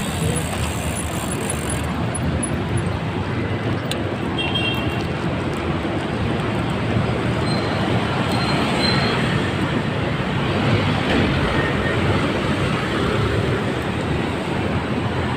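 Steady city street traffic noise, heard while riding along the road, with no pauses.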